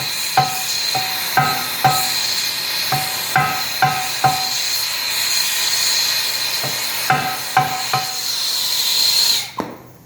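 Irregular hammer blows on a bent aluminium wheel rim being straightened, each blow ringing metallically, in groups of two or three with a pause of a few seconds in the middle. Under them runs a steady hiss with a high whistle that cuts off suddenly near the end.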